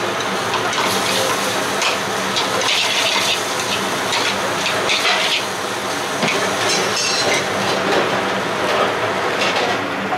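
Metal spoon stirring and scraping chilli paneer around an aluminium frying pan over a gas flame, in repeated scrapes, with the food sizzling over a steady background hum.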